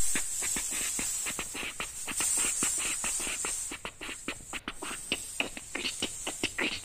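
Dry harvested rice straw rustling and crackling in quick irregular bursts as cut paddy stalks are gathered by hand into a bundle, over a steady high-pitched hiss.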